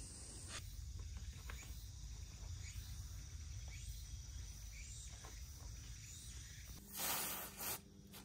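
Light rain outdoors: faint, scattered ticks of drops over a low rumble, then a brief loud rustle about seven seconds in.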